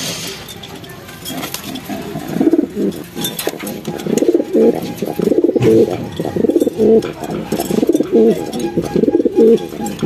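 Racing pigeons cooing: a run of low coos, one after another, starting about two seconds in and growing louder.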